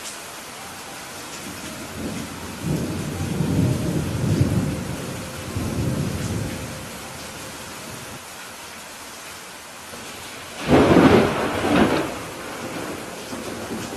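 Steady rain with thunder. A low roll of thunder comes a few seconds in, and a louder, sharper thunderclap about eleven seconds in.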